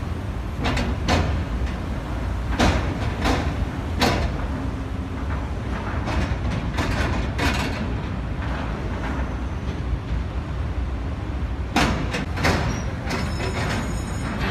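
Cars driving across a ferry's steel loading ramp, their tyres clanking over the ramp plates in a string of sharp clunks. A steady low rumble runs underneath.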